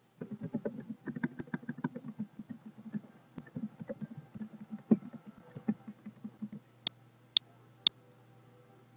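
Typing on a computer keyboard: a quick run of key clicks for about six seconds, then three sharp clicks about half a second apart near the end.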